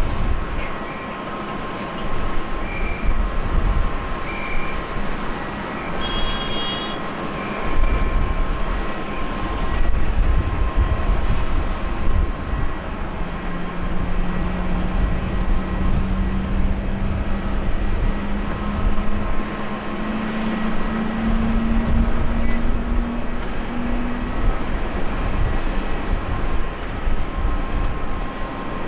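Boeing 767-300ER jet engines running at idle on the ground: steady high whining tones over a gusty low rumble. About halfway through, a low hum rises slowly in pitch for about ten seconds.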